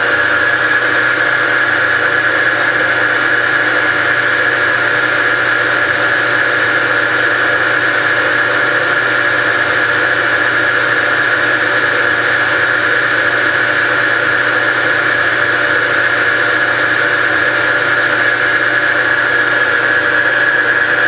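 Rambold turret lathe running steadily with a high-pitched whine while a turret tool, fed by the capstan handle, cuts a knuckle bushing from bar stock.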